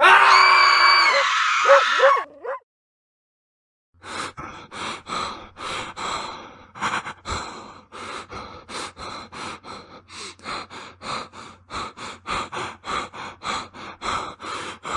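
Horror sound effect: a loud, harsh shriek with a high whine for about two seconds, cut off into silence, then rapid heavy panting breaths, about three a second, running on steadily.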